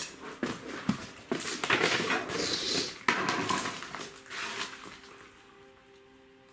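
Footsteps crunching and rustling over scattered paper and debris on a hard floor, with irregular clicks and scrapes for about four seconds before it goes quiet.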